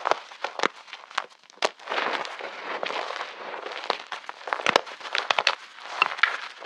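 Reformed chalk crunching and crumbling under pressure: a rapid run of sharp cracks and snaps over a gritty, powdery crumble.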